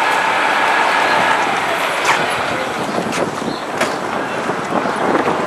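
City street traffic noise, steady and fairly loud, with a steady whine from a running vehicle that fades out about a second and a half in and a couple of sharp clicks.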